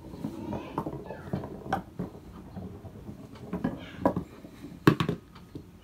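A small bouncy ball rolling and rattling along a paper-straw track, ticking and knocking against the straws as it takes the turns. The loudest knocks come about five seconds in, as it drops into a container at the end of the run.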